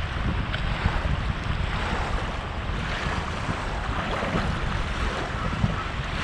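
Wind buffeting the microphone in an uneven low rumble, over a steady rush of river water.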